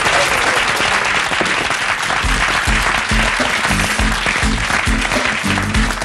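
Studio audience applauding while a live band starts up about two seconds in, setting a steady, rhythmic bass beat under the clapping: the introduction of a Georgian song.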